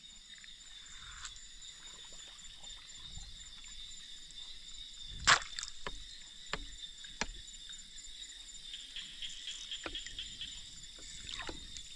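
Steady high-pitched insect drone of the forest, with scattered sharp clicks and knocks; the loudest comes about five seconds in.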